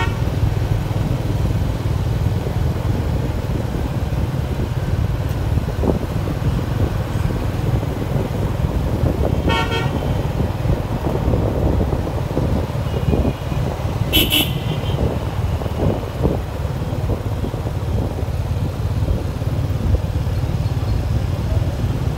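Road traffic: a steady low rumble of engines, with a vehicle horn tooting briefly about ten seconds in and a shorter, higher horn beep a few seconds later.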